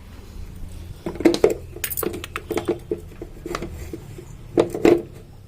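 Kitchen vessels and utensils knocking and clattering a few times over a low steady hum, in clusters about a second in, around two seconds in and near the end.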